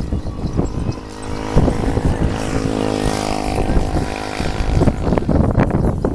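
A motor vehicle's engine running with a steady drone for a few seconds, under heavy wind rumble and buffeting on the microphone.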